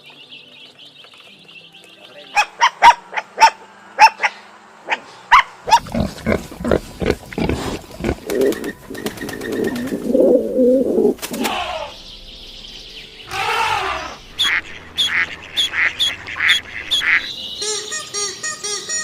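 A sequence of different animal calls: a run of sharp short sounds, then a dense noisy stretch, then a series of short calls at a regular pace near the end.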